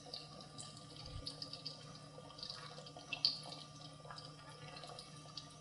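Cherry hand pies deep-frying in oil at about 375°F in a Dutch oven: a faint, even bubbling sizzle with scattered small pops and crackles, the loudest a little after the halfway point.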